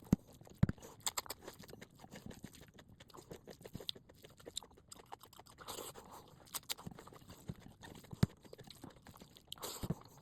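A person eating close to the microphone, mukbang-style: chewing with irregular wet mouth clicks and crackles, and a few louder snaps.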